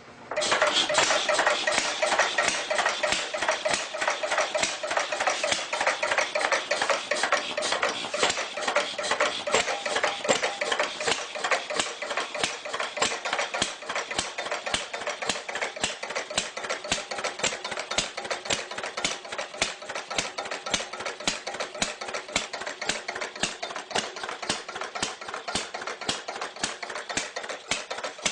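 Old engine running at idle with a rapid, even mechanical clatter.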